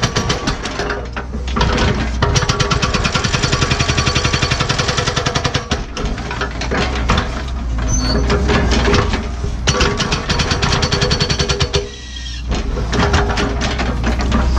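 Cat 314E excavator's NPK hydraulic hammer breaking hard blue bedrock: rapid, evenly spaced blows in runs of a few seconds, with short breaks about a second in, around six seconds and near twelve seconds. The excavator's diesel engine runs steadily underneath.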